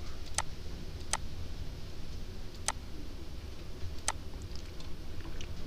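Computer mouse button clicked four times, single sharp clicks a second or more apart, over a low steady hum.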